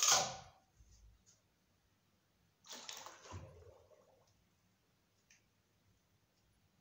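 Water sloshing in a plastic bucket as a submersible pond pump is lowered into it, a splash about three seconds in that dies away over a second and a half. A brief noise of handling comes right at the start.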